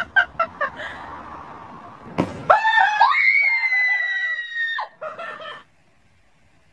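A person screaming: one long, high scream of about two seconds, starting about two and a half seconds in and breaking off sharply. It is preceded by a few short, sharp sounds in the first second.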